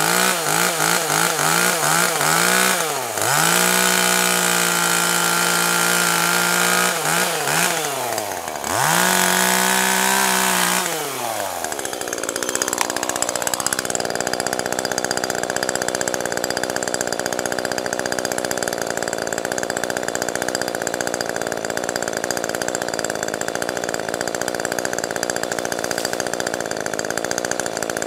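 Husqvarna 181 two-stroke chainsaw cutting into a tree near its base: the engine revs up and down in quick pulses, then holds high revs through the cut, dips once and climbs again. About eleven seconds in it drops back to idle and idles steadily for the rest.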